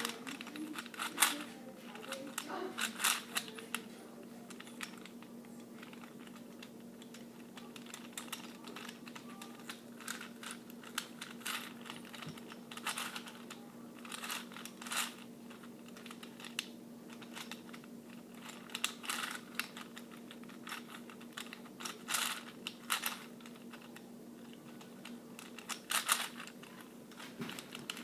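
Gear Ball twisty puzzle being turned fast: irregular flurries of sharp plastic clicking from its gears and layers, over a faint steady hum.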